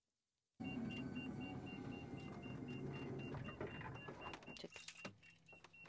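A motor starts abruptly about half a second in and runs steadily for about four seconds, with a rapid repeating beep over it; near the end it dies away among a few clicks.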